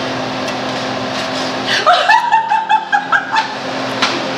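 A woman laughing heartily in a quick run of pulsed ha-ha's, starting about two seconds in and lasting about a second and a half, over a steady fan hum.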